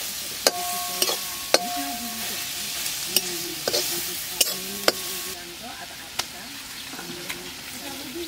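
Metal spatula stirring pond oysters frying in a metal wok: a steady sizzle, with the blade knocking against the pan about eight times, several knocks leaving a short metallic ring. The sizzle grows fainter after about five seconds.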